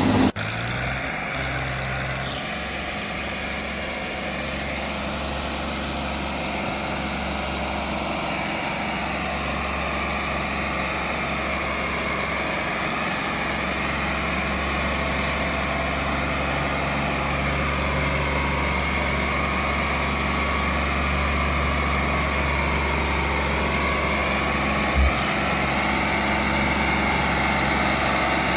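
Farmtrac 4x4 tractor's diesel engine running steadily as it hauls a loaded trailer through mud, its note rising and falling slightly. A single short thump about twenty-five seconds in.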